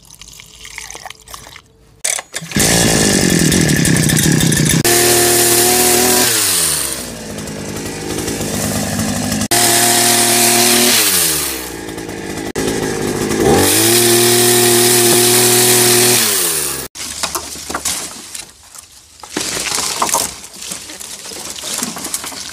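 Liquid trickles into a plastic funnel. Then, from about two and a half seconds in, a petrol pole saw's small engine runs at high revs cutting shrub branches, drops back to idle and revs up again twice, and cuts off sharply about seventeen seconds in. After that comes irregular rustling and snapping of leafy cut branches as they are pushed into a car boot.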